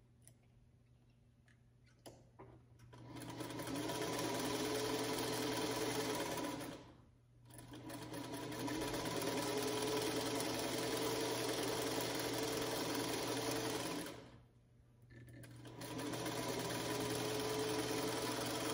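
Black electric sewing machine stitching a quarter-inch seam in pieced fabric strips, with a motor whine that climbs as it speeds up. It starts about three seconds in, after a few soft handling clicks, and stops briefly twice before running on.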